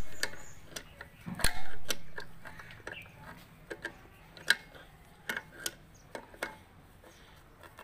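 Metal tools clicking against the front drum brake's cam lever and nut as they are tightened with pliers. A sharp metallic click with a short ring comes about one and a half seconds in, then scattered lighter ticks.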